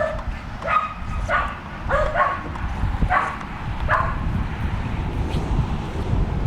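Shetland sheepdog puppies barking: a string of about seven short, high yips over the first four seconds, then they stop.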